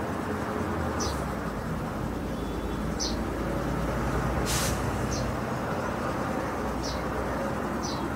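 Steady low background rumble, like distant traffic, with short high chirps every second or two and a single sharp click about halfway through.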